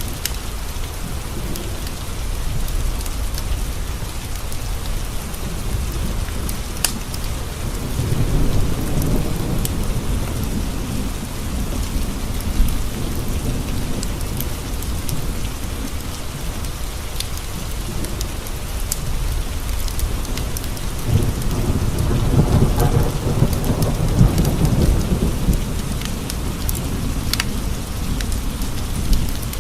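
Steady rain pattering on windows, with two long low rolls of thunder, one starting about eight seconds in and a longer one about twenty-one seconds in. A few sharp pops from a wood fire crackling in a fireplace are scattered through it.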